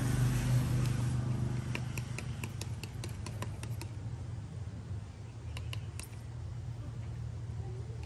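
A plastic paint-mixing stick clicking against the wall of a plastic mixing cup while stirring paint: a quick run of light clicks about two seconds in and a few more near the middle. A steady low hum continues underneath.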